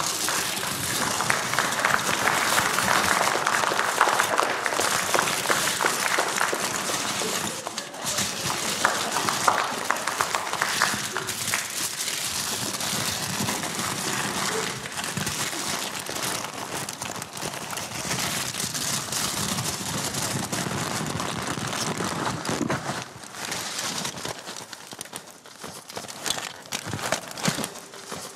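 Thin clear plastic bag crinkling and rustling in dense crackles, heaviest in the first few seconds and thinning out near the end.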